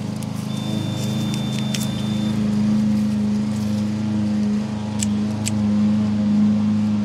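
A motor running steadily with a low, even hum. A thin high tone sounds briefly early on, and there are a couple of sharp clicks about five seconds in.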